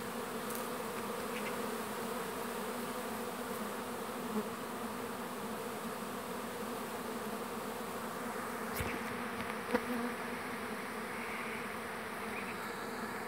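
Honey bees from many hives flying around the entrances of a trailer-mounted apiary: a steady, dense hum of wingbeats. A couple of brief clicks come about two-thirds of the way through.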